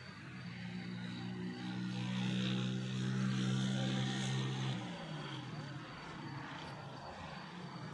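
An engine drones steadily, growing louder over a few seconds, then drops in pitch and fades about five seconds in, as a passing vehicle does.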